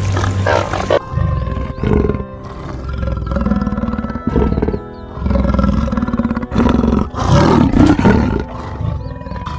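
Lion roaring in a series of deep calls of varying length, over background music.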